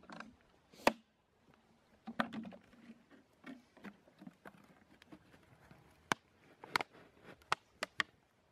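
Cut-off plastic drinks bottles being handled, twisted and pushed down into stiff soil over rose cuttings: an irregular string of sharp plastic clicks and crackles, with a few dull knocks.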